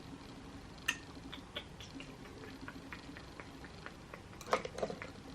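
Makeup brushes and cosmetic cases being handled and rummaged through: faint scattered clicks and taps, one sharper click about a second in, then a louder clatter near the end.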